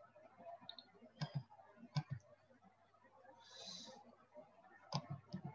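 Faint computer mouse clicks: a few separate sharp clicks, spaced a second or more apart, over quiet room tone.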